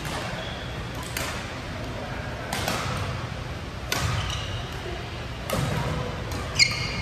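Badminton doubles rally: rackets hitting the shuttlecock in sharp cracks about every second and a half, with court shoes squeaking on the floor. The sharpest squeak comes near the end.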